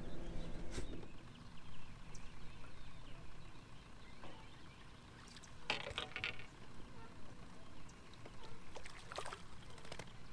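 Water lapping gently against a fishing boat's hull, with a few light clicks and knocks from the rod and reel being handled; a cluster of clicks comes about six seconds in as a line is cast out.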